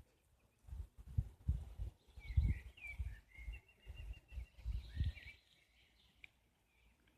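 Small birds chirping and singing for a few seconds in the middle, over irregular low rumbling noise.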